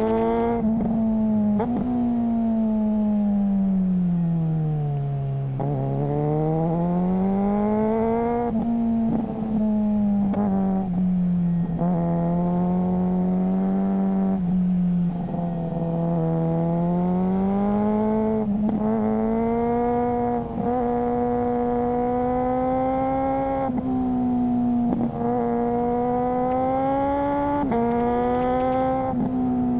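Suzuki GSR600 inline-four running through a GPR Ghost aftermarket exhaust under way, its note easing down about five seconds in and climbing back. The note is held mostly steady, broken by about a dozen very short cuts, the gear changes of a quickshifter.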